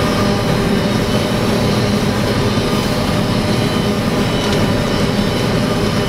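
Self-propelled forage harvester chopping standing corn: a loud, steady drone of the engine, cutterhead and corn header running under load, with several steady whining tones, heard from inside the cab.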